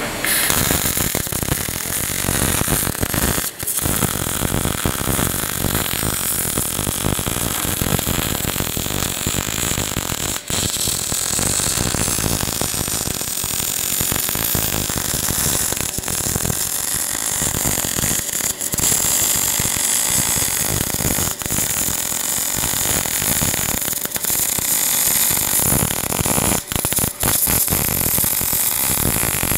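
MAG welding arc on a metal pipe, welded vertical-up: a continuous dense crackle and hiss, broken by a few brief pauses where the arc stops for a moment.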